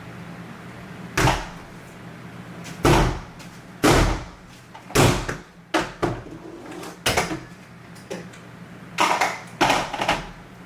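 About ten loud, sharp bangs and slams at irregular intervals: things in a bedroom being banged down and slammed on purpose to make noise.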